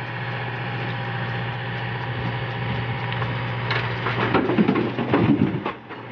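Backhoe engine running steadily, then about four seconds in a loud, irregular crunching and clattering that lasts about two seconds.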